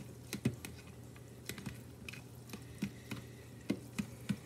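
A fork stirring instant noodles in a bowl: irregular light clicks and taps of the fork against the bowl.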